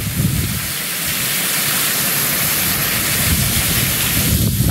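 Torrential hurricane rain pouring down in a loud, steady hiss. Wind gusts buffet the microphone in irregular low rumbles, strongest near the end.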